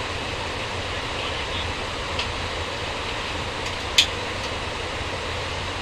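Steady cabin noise inside an Airbus A350-900 airliner, an even rush of air with a low hum under it, broken by a sharp click about four seconds in.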